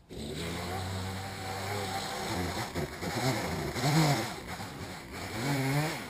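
Gas chainsaw starting up and idling steadily, then revved in three short rising-and-falling blips in the second half.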